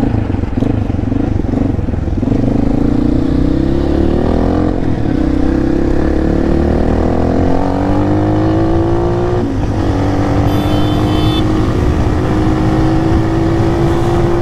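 Motorhead Sports 250 dirt bike's 250 cc engine accelerating under way. Its pitch climbs steadily for several seconds, breaks briefly at a gear change about nine and a half seconds in, then rises slowly again at a steady pull.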